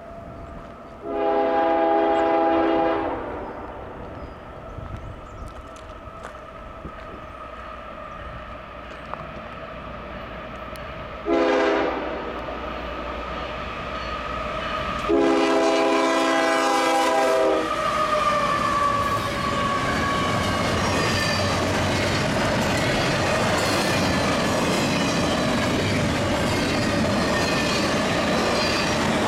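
Canadian Pacific diesel freight locomotive's air horn sounding for a grade crossing: a long blast about a second in, a short one near the middle, and a long one a few seconds later, over the steady ring of the crossing signal. About two-thirds of the way in, the double-stack container train begins rolling past, with steady wheel clatter and rumble on the rails.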